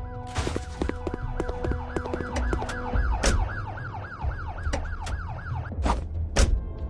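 A fast siren-like warble, rising and falling about four times a second, over music with steady tones and a few sharp hits; it stops near the end.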